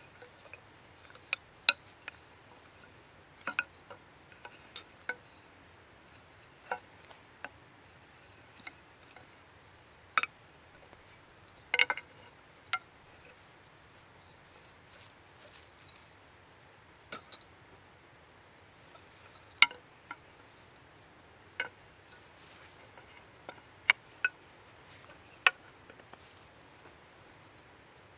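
Peeled wooden poles clicking and knocking against each other as they are handled and lashed into a frame: sharp, irregular single knocks a second or two apart.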